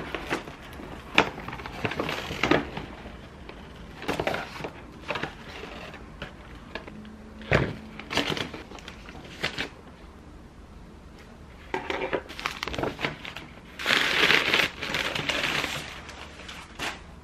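Paper shopping bag rustling and small boxes knocking as they are set down on a table during unpacking. Near the end comes a longer, louder stretch of crumpling paper as the wrapping is pulled off a drinking glass.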